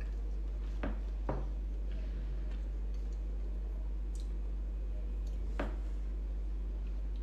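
A few light clicks and taps, two about a second in and one louder one past five seconds, over a steady low hum.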